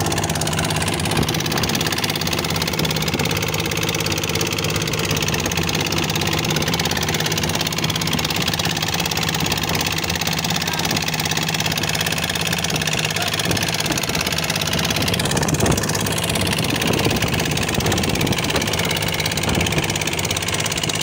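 Fishing boat's engine running steadily, a constant even drone, with a brief louder noise about fifteen seconds in.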